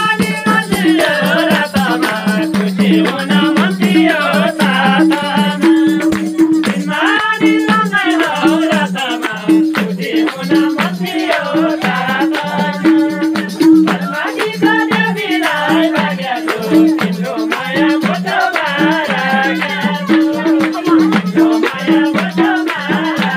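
Nepali dohori folk music played live: tambourine jingles and madal drum keep a fast, busy beat under a held low drone, with voices singing over it.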